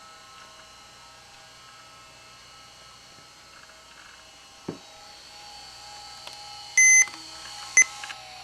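Toshiba Tecra 8000 laptop running with a faint steady whine, a single knock about halfway through, then a loud electronic beep and, a second later, a shorter second beep.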